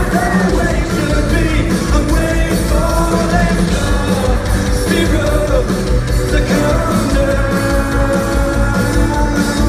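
Live rock band playing a song with a singer's voice over it.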